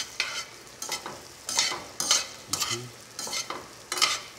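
Mixed vegetables sizzling in a stainless steel sauté pan as they are tossed with metal tongs, the sizzle swelling in short repeated bursts each time the vegetables are turned.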